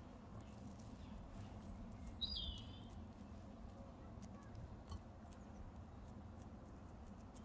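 Faint, soft handling of moist potato-and-cheese dough as hands press and shape it into a patty, with a few small clicks over a low steady hum. A single short chirp sounds a little over two seconds in.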